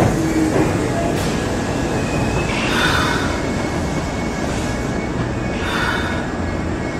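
Kintetsu electric commuter train rolling alongside the platform and braking to a stop. It gives a steady low rumble with a faint high brake squeal, and short hisses about three and six seconds in.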